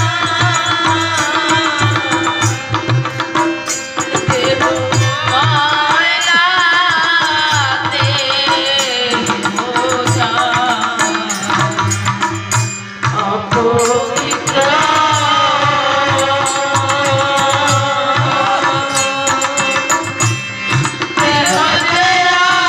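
A woman sings a Bengali devotional folk song into a microphone, accompanied by a harmonium's steady reedy chords and a hand drum keeping a regular beat. A second singer joins in on the vocal line.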